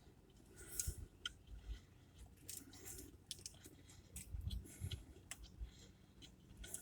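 Chewing a mouthful of fried chicken sandwich on ciabatta: faint, irregular crunching clicks and soft mouth sounds.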